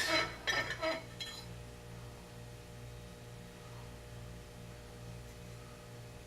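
Steel lawn mower blade clinking against the screw it hangs from while its balance is checked: a quick run of metallic clinks with a slight ring in the first second or so, then only a low steady hum.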